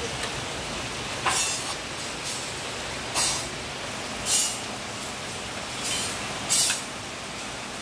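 Steady rain falling on foliage, with six short, louder hissing surges a second or so apart.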